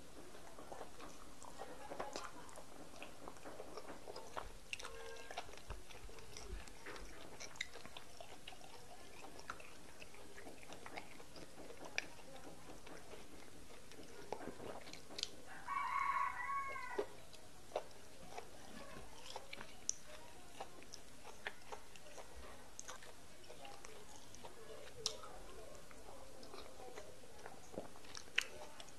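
Close-up eating sounds of fufu and egusi soup eaten by hand: soft wet chewing and lip-smacking clicks scattered through, over a faint steady hiss. Around the middle, a brief high-pitched wavering sound lasting about a second and a half stands out as the loudest moment.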